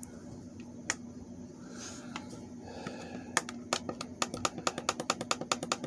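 Buttons of a Spartus digital alarm clock being clicked: a couple of single clicks, then from about three and a half seconds in a quick run of clicks, several a second, as the clock is being set.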